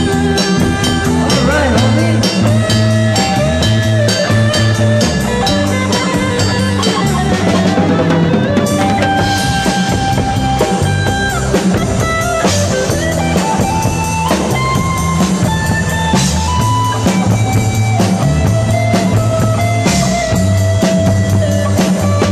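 Live rock band playing: a drum kit keeps a steady beat with cymbal strokes under electric guitar and sustained melody notes.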